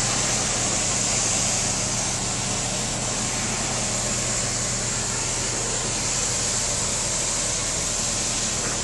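Pressure washer running: a steady motor hum under a continuous high hiss.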